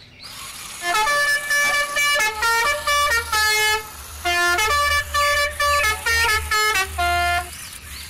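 A musical car horn honking a tune of short notes in two phrases, about a second in and again near the middle, over a low steady engine rumble.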